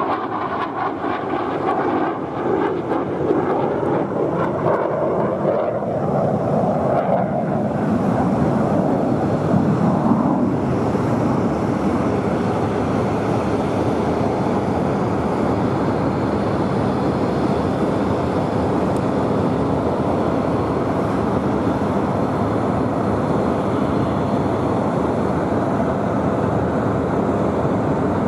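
Jet noise from the single F404 turbofan of a Tejas light combat aircraft flying a display. Its pitch shifts and slides over the first ten seconds or so, then it settles into a steady, even rush.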